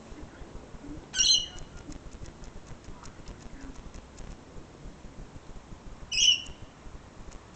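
Rainbow lorikeet giving two short, shrill screeches about five seconds apart, the first about a second in, with a run of faint clicks after the first.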